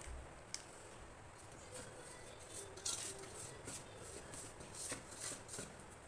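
A hand mixing dry flour in a steel bowl: soft, irregular rustling and scraping strokes.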